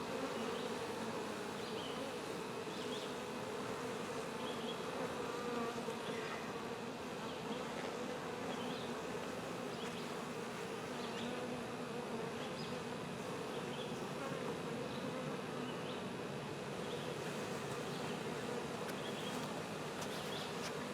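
A mass of honey bees buzzing, a dense steady hum from a colony that has been disturbed and is on the wing.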